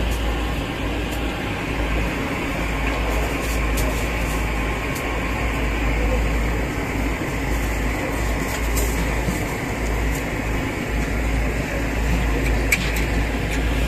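Steady machine hum and rumble in the background, with a few light crackles of thin butter paper as the sheets are spread out by hand.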